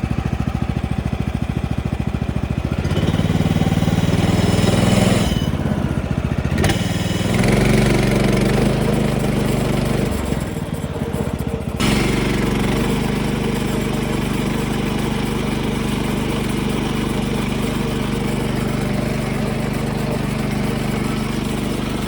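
Gas engine of a Woodland Mills HM126 portable band sawmill running as the band blade is engaged. The engine speeds up about three seconds in, shifts a few times, then settles into a steady run from about twelve seconds on.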